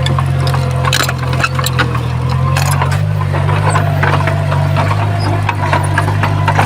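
Heavy diesel engine of earthmoving machinery running steadily, with scattered sharp knocks and rattles over it.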